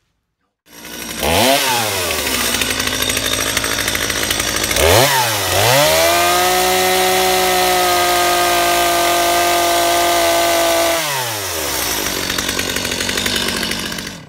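Stihl two-stroke chainsaw running and revving. It climbs to high revs, dips and climbs again about five seconds in, and holds a steady high pitch for about five seconds. Its pitch then falls and it runs lower until the sound stops abruptly at the end.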